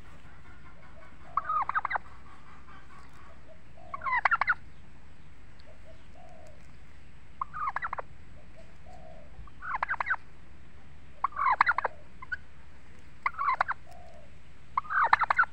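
Domestic tom turkeys gobbling close by: about seven short, loud gobbles, one every two seconds or so.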